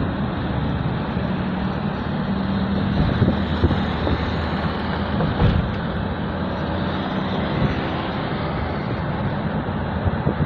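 Steady road noise of a car heard from inside the cabin while driving: a low engine hum with tyre rumble.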